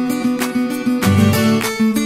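Instrumental background music led by a strummed acoustic guitar, with pitched chords struck in a regular rhythm.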